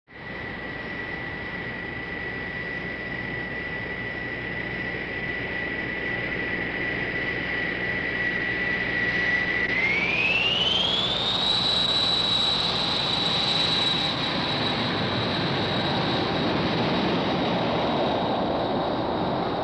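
Jet engine running with a steady high whine that glides up in pitch about halfway through as the engine spools up, over a rushing roar that grows louder.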